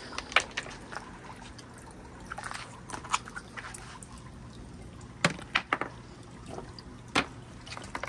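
Water trickling and dripping through a water marble run, with scattered sharp drips and plinks, the loudest a little after five seconds and again just after seven seconds.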